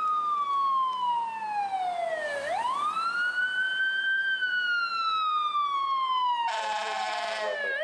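Fire engine siren on a slow wail: the pitch sweeps down slowly, climbs back quickly about two and a half seconds in, then sweeps down again. A horn blast of about a second cuts in over it near the end.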